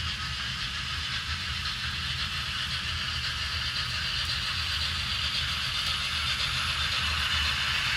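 HO scale model steam train running on the layout: a steady train rumble with a hiss above it, slowly growing louder as the train approaches.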